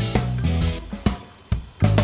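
Background music with a steady beat, dropping away briefly about a second in before coming back.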